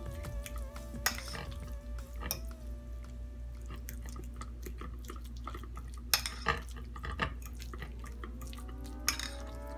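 Metal fork clinking and scraping against a glass mixing bowl while mashing a cooked potato filling, with a scattering of sharper clinks.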